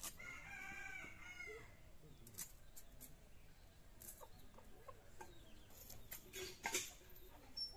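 A rooster crows for about a second and a half, then come scattered scraping strokes and clicks as a snakehead fish is scaled against a boti blade, the loudest strokes near the end.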